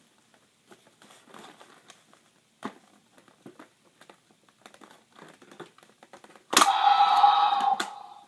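Plastic toy packaging crinkling and clicking faintly as a T-Rex toy is worked free. About two-thirds of the way through, a loud electronic sound from the toy cuts in suddenly and runs for about a second and a half.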